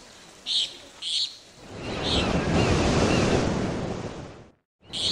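A wave washing in, a rushing swell that builds and fades over about three seconds, with short high chirps before it. The sound breaks off suddenly near the end, then starts again with a chirp.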